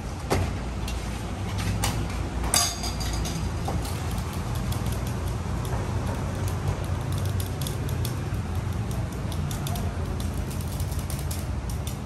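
Stainless steel mugs and utensils clinking and knocking as they are handled at a steel counter, with one brighter ringing clink about two and a half seconds in. Under it runs a steady low rumble.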